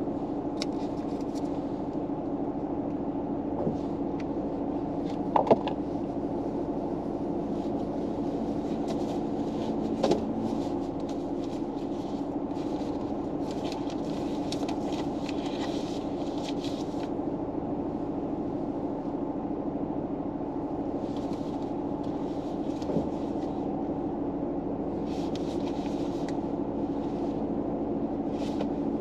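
Steady hum inside a stationary car, from its running engine or climate blower, with a low drone throughout. A couple of small clicks come about five and ten seconds in, and soft rustles come and go.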